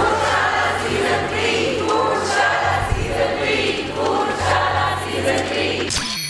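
Dramatic music with a choir singing over a steady low bass, ending in a quick falling whoosh.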